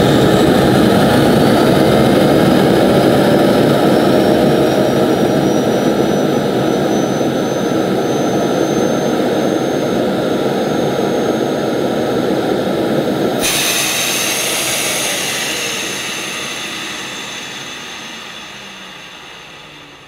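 Hoover Discovery bagless cylinder vacuum cleaner's motor running with its hose sealed by a water-lift gauge, pulling about 120 inches of water; the whine rises in pitch as the blocked airflow lets the motor speed up. About two-thirds through the sound changes suddenly, and the motor then winds down over the last few seconds.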